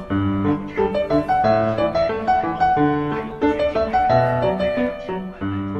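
Background piano music: a tune of quick notes over a recurring bass line.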